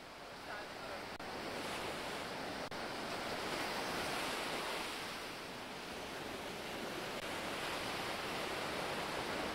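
Ocean surf breaking on a sandy beach, a steady rushing wash that grows louder about a second in, with wind buffeting the microphone.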